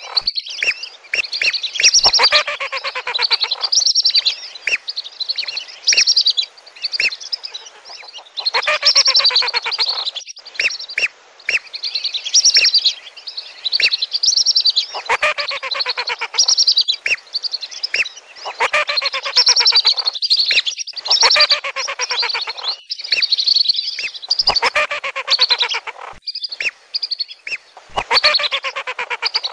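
A flock of whistling ducks (belibis) calling: shrill, rapidly repeated whistles from many birds overlapping, coming in bouts of a few seconds with short pauses between.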